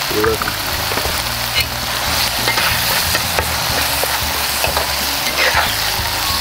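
Green chili sambal sizzling in oil in a frying pan, with a metal spatula scraping and clicking against the pan as it is stirred.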